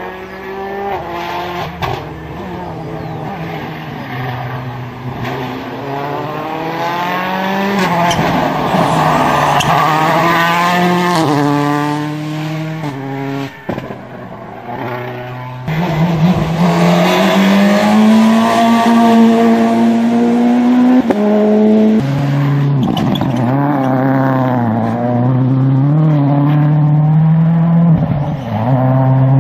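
Rally car engines running hard at high revs, the pitch rising and stepping down at each gear change as the cars accelerate along the stage. The sound cuts off suddenly about halfway through and comes back louder.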